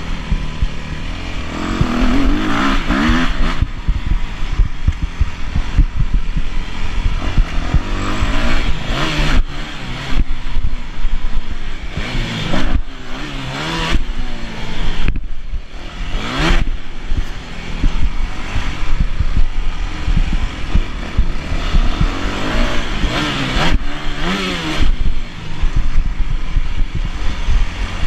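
Yamaha YZ250F single-cylinder four-stroke motocross engine under hard riding, the revs climbing and dropping off again and again as the throttle is opened and shut through the turns. Many short knocks are heard from the bike over the rough track, with a brief throttle cut about halfway through.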